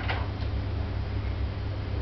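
Steady low hum under a faint even hiss, with one faint tick about half a second in.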